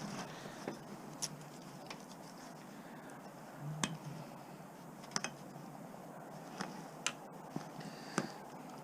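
Scattered sharp clicks and clinks of scrap being picked up and handled, about five in all, over a low steady hiss.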